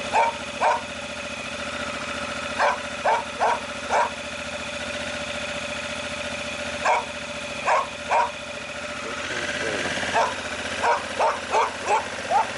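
A dog barks in short, sharp barks, in irregular groups of two to five, over a Honda Africa Twin's parallel-twin engine running steadily at idle. The engine's pitch rises a little in the second half as the bike moves off.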